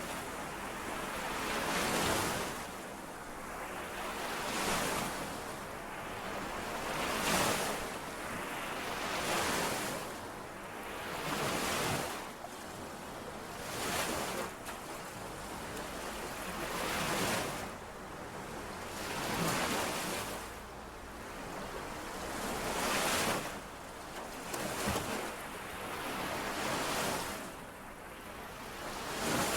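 Small lake waves washing in and out on the shore, a hiss that swells and fades about every two to three seconds.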